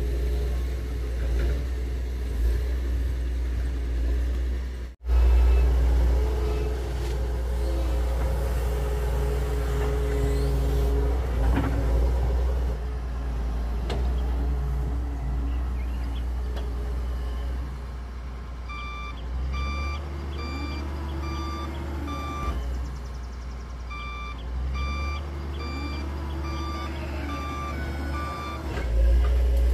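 Doosan wheeled excavator's diesel engine running under load as it digs, its pitch rising and falling. In the second half its travel alarm beeps steadily, about two beeps a second, in two spells.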